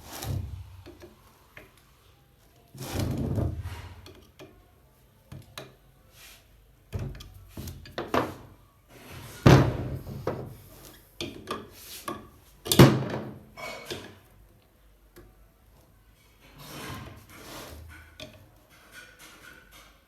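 Irregular clunks, knocks and rubbing of hard parts being handled, with quiet gaps between them and two sharper knocks, one about halfway through and one about two-thirds through.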